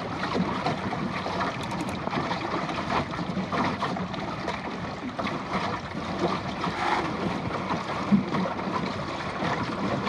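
Water splashing and gurgling along the plywood hull of a Goat Island sailing skiff under way, mixed with wind, with one sharper slap about eight seconds in.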